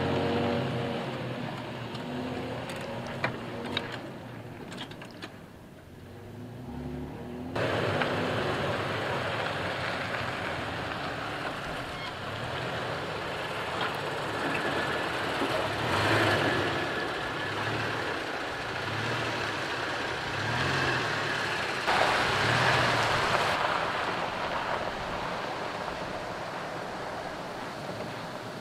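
Toyota Tacoma pickup driving on a dirt track: engine running with tyres on dirt and gravel. About seven and a half seconds in the sound turns abruptly to a louder, rougher rush of noise with soft low thumps about once a second.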